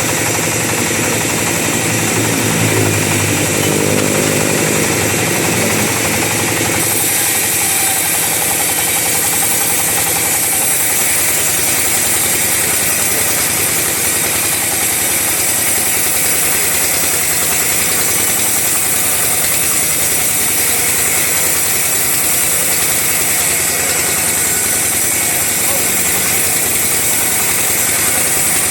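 Two-stroke chainsaw running hard while sawing teak timber. Its engine note shifts in pitch for the first few seconds, then changes about seven seconds in to a steady, brighter cutting sound that holds to the end.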